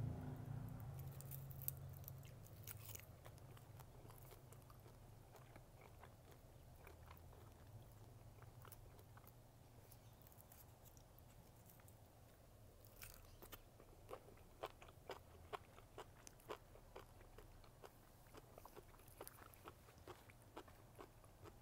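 Faint close-up chewing of pasta, enoki mushrooms and roasted seaweed, with small crunches and wet mouth clicks that come more often in the second half, over a steady low hum.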